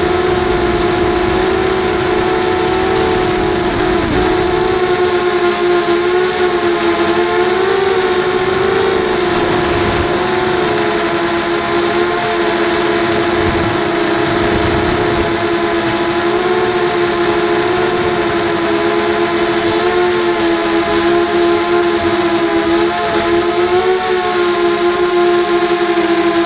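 Brushless motors and propellers of a 240-size FPV racing quadcopter whining steadily, heard close up from the camera mounted on the drone. The pitch wavers gently up and down as the throttle changes.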